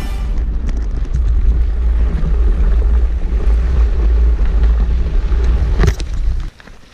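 Low, steady wind rumble on an action camera's microphone while mountain biking, with small knocks and rattles from the bike. A sharper knock comes near the end, and then the rumble cuts off suddenly.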